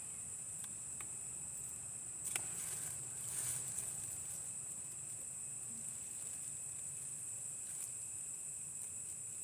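Steady high-pitched hiss of night ambience, with one sharp click about two seconds in and a brief rustling noise about a second later.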